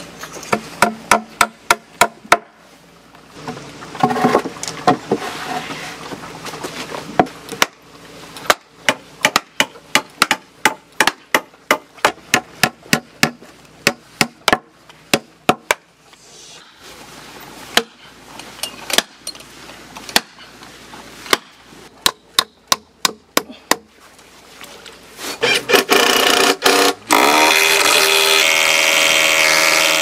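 Hammer blows in quick runs of several strikes, with short pauses between the runs. About 25 seconds in, a loud steady drone with a held pitch starts and takes over.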